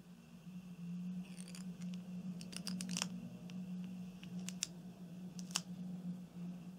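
Sharp little clicks and scratchy crackles of a plastic hook extractor being worked against a block of styrofoam. They come scattered through the first five or six seconds over a steady low hum.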